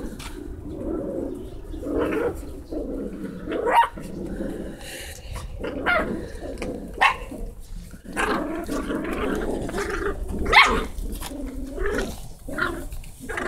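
Dachshund puppies growling steadily as they play, with several sharp yaps and yips breaking through.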